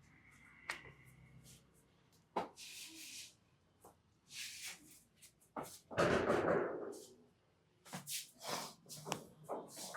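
Hands working over a head in a massage: brushing, rubbing strokes through hair and over skin, mixed with sharp slaps and taps. A louder noisy stroke lasts about a second around six seconds in, and a quick run of taps follows near the end.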